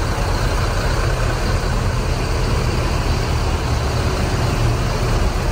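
Diesel engines of parked tour buses idling, a steady low rumble.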